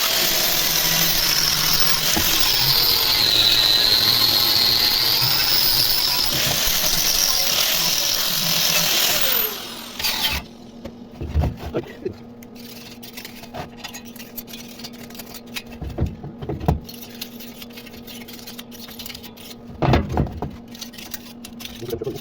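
A power tool runs with a high whine that wavers in pitch, then spins down about nine to ten seconds in. After that a low steady hum remains, with a few sharp knocks.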